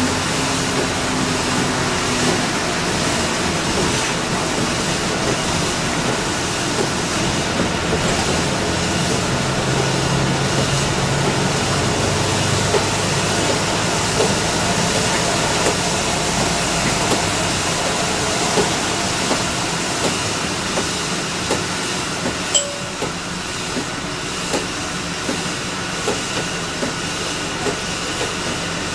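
Inside an Orion V diesel transit bus at speed on a wet road: steady engine and road noise with tyres hissing on the wet pavement and the windshield wipers running. The noise eases a little in the second half as the bus slows, with a sharp click near the end.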